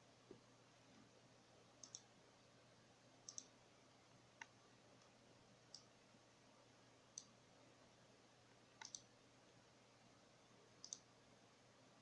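Faint, sharp clicks every one to two seconds, some in quick pairs, over a low steady hiss.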